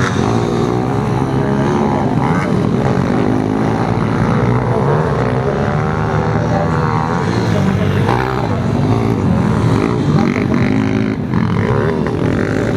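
A pack of pit bikes racing together: several small motorcycle engines revving up and down at once, their pitches overlapping and shifting as riders accelerate and back off.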